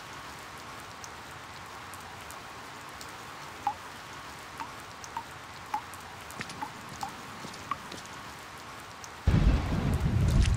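Steady rain with scattered water drips plinking, then a sudden loud rumble of thunder about nine seconds in.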